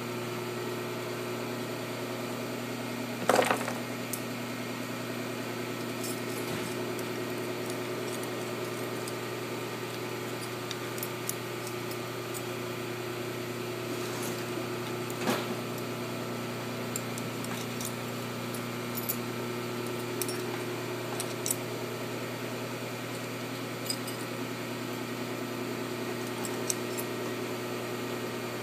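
A steady machine hum with several held tones. Over it come metal parts being handled and fitted onto the valve stems of a Cummins 855 diesel cylinder head: a loud knock about three seconds in, another about fifteen seconds in, and light scattered clicks through the second half.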